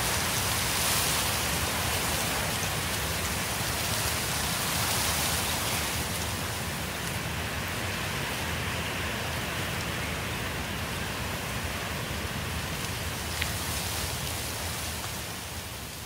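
Steady rain, an even hiss of drops that begins to fade out near the end.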